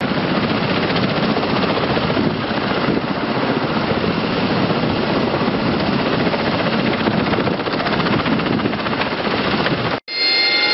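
Loud, steady roar of flight-deck noise with no clear engine tone. About ten seconds in it cuts off suddenly and an AV-8B Harrier's Pegasus turbofan takes over with a high whine of several steady tones, one of them rising.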